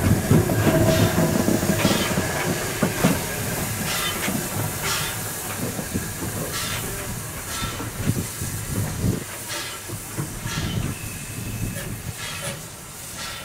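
Caledonian Railway No.419, an 0-4-4T steam tank locomotive, running away along the track: a steady steam hiss with scattered wheel clicks, fading as it draws away.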